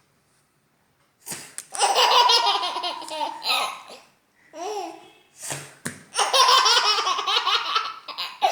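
Eight-month-old baby girl laughing in long bursts, starting after about a second of silence, with a short break halfway through.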